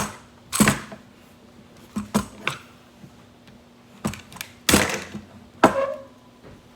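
Stiff plastic toy packaging being handled and pulled at: a string of sharp crackles and clacks with short pauses between them.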